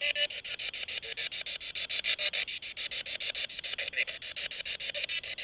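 Spirit box sweeping through radio stations: a steady, choppy stutter of static at about ten pulses a second.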